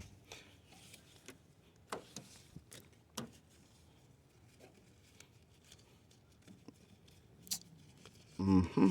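A few faint, scattered clicks and knocks over a quiet background, with a short burst of a man's voice at the very end.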